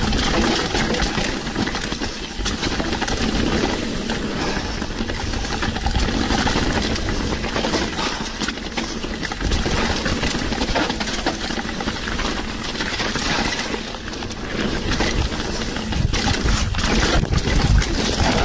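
Mountain bike ridden down a dirt trail: a steady rush of wind and tyre noise, with frequent rattles and knocks from the bike over bumps and roots.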